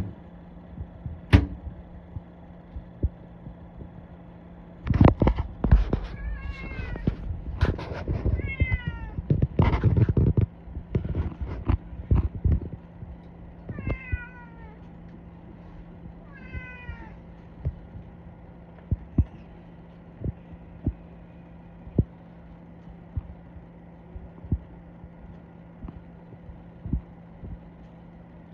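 Savannah kitten giving short, falling, chirping meows in quick clusters, several between about 6 and 10 seconds in and again near 14 and 17 seconds. Loud thumps and knocks come between about 5 and 12 seconds in, with scattered light taps later, over a steady low hum.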